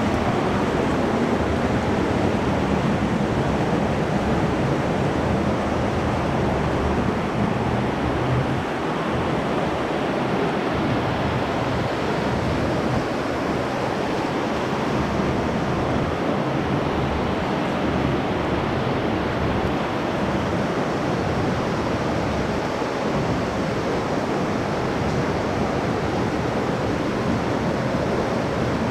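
Cave stream rushing steadily over rocks, a constant loud wash of water echoing in the cave passage.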